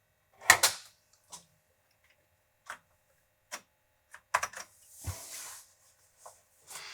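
Irregular sharp clicks and clacks from an Amiga 1000 being worked to start a program. The loudest is a double click about half a second in, and short rushing noises come about five and seven seconds in.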